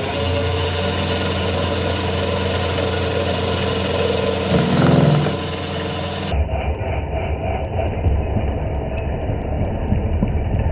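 Kearney & Trecker rotary head milling machine running, its end mill taking a heavy full-width counterbore cut at slow feed. The hum is steady at first. About six seconds in it turns rougher, with a fast rhythmic chatter.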